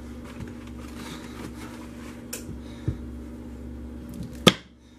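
Soap loaf being slid and positioned on the wooden base of a wire soap cutter: soft knocks and a sharp click, then a loud knock near the end, over a steady hum.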